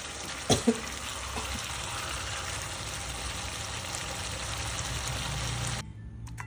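Chicken in a thick chilli spice sauce sizzling in a pan, an even hiss with two short knocks about half a second in; the sizzle cuts off abruptly near the end.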